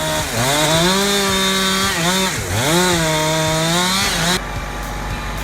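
A small engine running at high revs, its pitch dropping sharply and recovering twice, as under load, then cutting off abruptly a little over four seconds in, where a quieter low rumble takes over.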